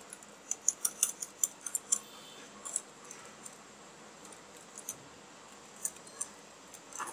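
Wire whisk beating a thin egg-and-milk mixture in a ceramic bowl, its wires clicking lightly against the bowl: rapid clicks for the first two seconds or so, then scattered single clicks.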